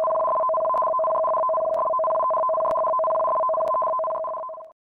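Electronic two-tone alert sound of a tsunami warning: two steady pitches held together without a break, cutting off shortly before the end.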